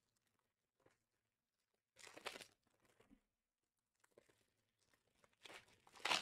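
Trading-card pack wrapper crinkling and tearing in two short rustles, one about two seconds in and a louder one near the end, with a few faint ticks of cards being handled between.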